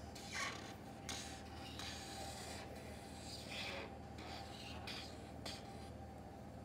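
Felt-tip art marker drawn across paper in a series of short scratchy strokes, the tip rubbing on the sheet as each line of the outline is drawn.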